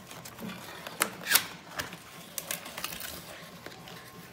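Handling noise from a computer keyboard being taken out of its cloth bag: scattered clicks and knocks with soft rustling. The two loudest clicks come about a second in, close together.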